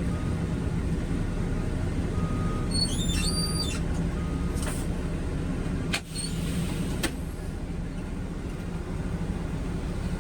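Concrete mixer truck's diesel engine running steadily, with a brief high stepping electronic tone about three seconds in and two sharp clicks near the end.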